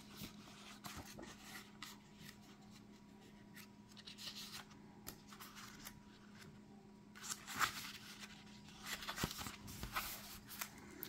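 Pages of an oracle deck's guidebook being leafed through: soft paper rustles and a few sharper flicks, busiest from about seven to ten seconds in.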